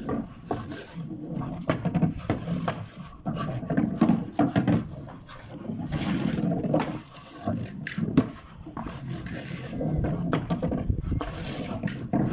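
Staffordshire bull terrier growling in play in rough, uneven spells as it pushes a ball across wooden decking, with scattered knocks from the ball and its paws on the boards.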